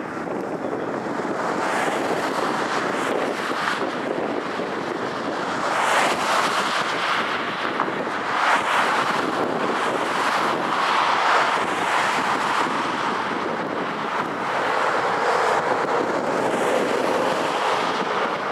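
Wind rushing over the microphone mixed with surf, a steady noise that swells and ebbs every few seconds.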